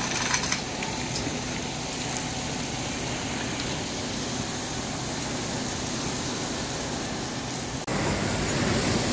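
Hurricane wind blowing steadily, a broad rushing noise. About eight seconds in it breaks off for an instant and comes back louder.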